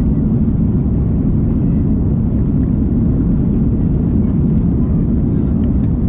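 Steady low rumble of an Airbus A330-200's engines and airflow heard from a window seat inside the cabin while the airliner climbs out after takeoff.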